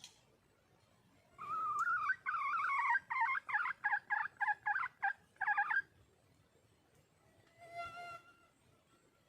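Red junglefowl hen calling: one drawn-out note and then a rapid run of short cackling notes, given as a hen calling for a mate. A brief buzzy tone sounds near the end.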